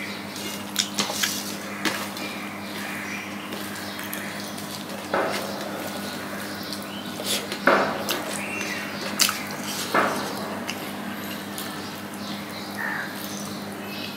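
Eating by hand close to the microphone: fingers mixing and scooping rice and curry on a steel plate, with scattered sharp clicks against the metal and wet smacks of mouthfuls and chewing, the loudest about halfway through. A faint steady hum runs underneath.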